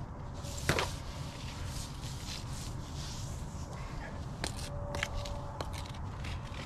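Yellow polyethylene gas pipe being handled and fed into a trench, the plastic scraping and rustling against soil and dry brush. There is one sharp knock about a second in and a few lighter clicks later, over a steady low rumble.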